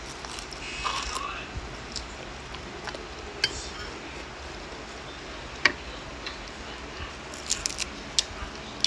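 Close-up eating sounds: a bite of corn tuna, then chewing with scattered sharp mouth clicks and smacks. A quick run of crisp crackles near the end is lettuce leaves being torn.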